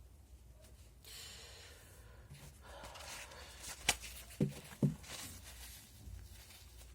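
Faint rustling and handling noise, with a sharp click just before four seconds in and two short low knocks about half a second apart right after it.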